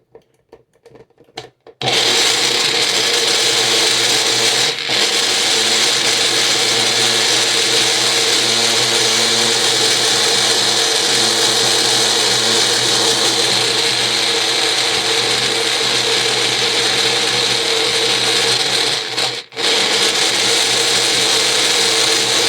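Electric blender running, puréeing chunks of carrot, apple and fresh ginger with water and lemon juice. It starts about two seconds in, dips briefly soon after, and stops for a moment near the end before running on.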